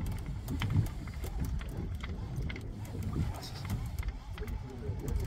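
Low rumbling of wind and sea around a fishing boat at sea, with scattered light clicks.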